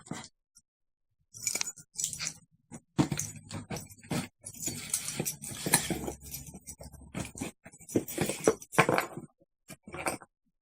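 A cardboard parcel being opened by hand: irregular rustling, scraping and sharp clicks of packaging being handled and torn, starting after a short quiet moment.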